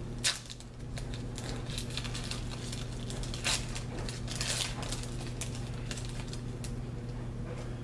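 A baseball card pack's wrapper being torn open and crinkled, with a few short rustling bursts, over a steady low electrical hum.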